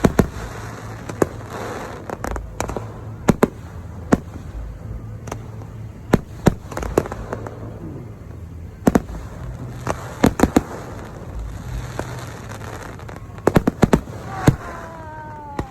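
Aerial fireworks display: a rapid, irregular series of sharp bangs from bursting shells over a crackling background, with a brief falling tone near the end.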